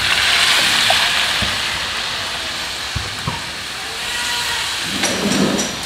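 Water poured from a plastic jug into a hot wok of frying vegetables, hissing and sizzling loudly as it hits the hot metal, the hiss slowly dying down over the next few seconds. A few light clicks are heard alongside.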